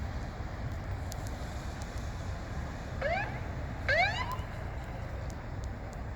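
Two short rising siren chirps, about a second apart, the second louder, over a steady low engine rumble.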